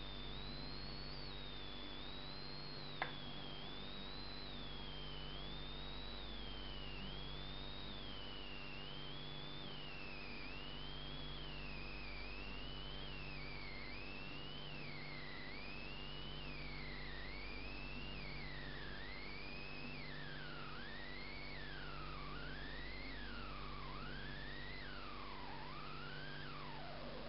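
A single thin electronic-sounding tone sliding up and down in repeated arcs, about one every second and a half, drifting lower in pitch and coming faster toward the end, over a steady hum and hiss. One sharp click about three seconds in.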